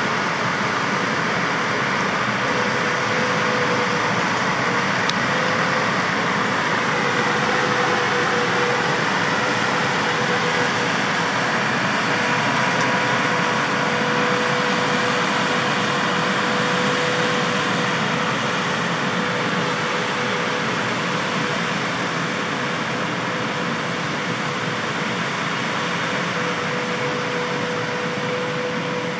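John Deere 8R-series tractor pulling an Amadas peanut combine as it picks peanuts: a steady drone of engine and threshing machinery with a constant whine through it.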